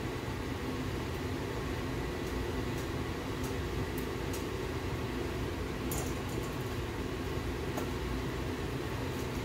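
A steady low mechanical hum, like a fan running, with a few faint clicks.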